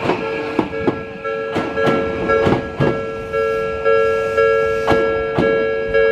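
Japanese railway level-crossing warning bell ringing, a two-tone ding repeated about twice a second, while a passing train's wheels clack over the rail joints.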